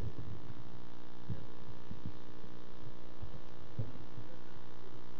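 Steady electrical hum made of several even, unchanging tones, with a few faint, brief low sounds now and then.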